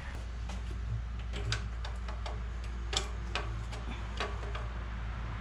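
Scattered sharp metal clicks and taps, about seven at uneven spacing, as the old spin-on engine oil filter is worked loose and spun off, over a steady low hum.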